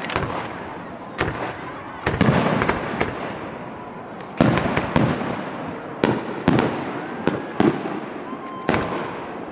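Aerial fireworks shells bursting overhead: about nine sharp booms, some in quick pairs, each trailing off.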